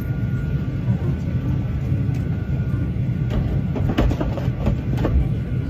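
Steady low rumble of an airliner cabin in flight, with a few light clicks and knocks in the second half.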